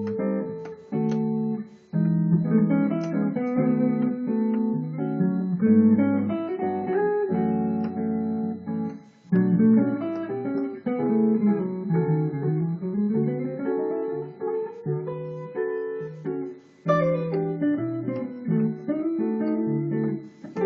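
Hollow-body electric guitar improvising jazz with a clean tone: chords and short single-note phrases, with a run that goes down and back up about halfway through.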